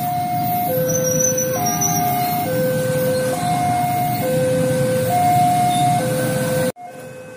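Railroad crossing warning alarm sounding its two-tone signal, a lower and a higher note alternating, each held just under a second, over the running engines of many motorcycles. Near the end the level drops abruptly, and the alarm continues more quietly.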